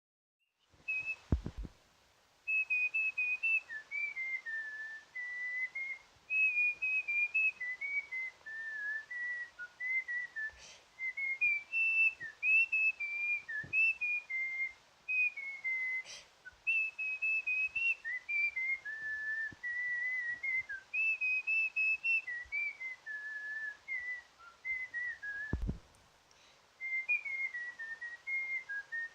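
Someone whistling a tune by mouth: a single clear whistled line stepping up and down in short phrases, with the same phrase returning several times. A couple of low thumps, about a second in and near the end.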